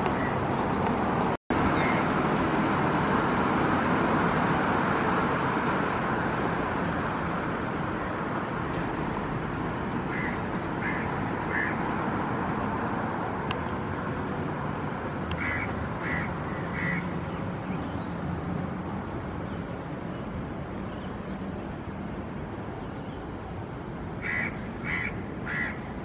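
A crow calls in three runs of three short, sharp caws, about ten seconds in, again around fifteen seconds and near the end, over a steady hum of trains and road traffic that eases off somewhat during the first half.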